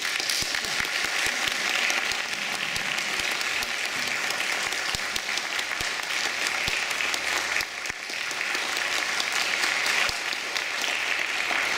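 A concert audience applauding, a steady clatter of many hands clapping.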